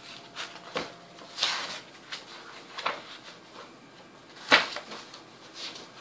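Pages of a paperback activity journal being leafed through: a few short paper rustles and taps, the loudest about four and a half seconds in.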